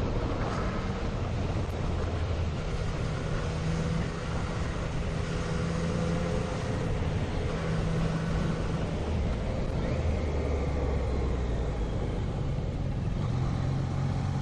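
Motorcycle engine running at road speed under wind noise, heard from the rider's own bike; the engine note holds steady and shifts in pitch a few times.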